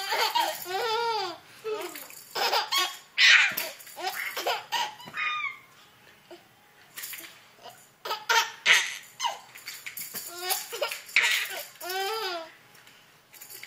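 A baby laughing in repeated bursts of giggles and belly laughs, each a quick run of rising-and-falling notes, with a short lull in the middle.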